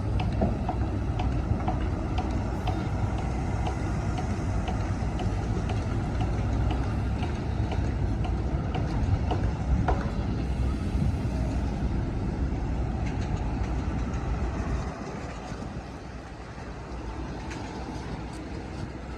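Heavy diesel earthmoving machinery running under load, a deep steady engine rumble with light clicking over it, easing off about fifteen seconds in.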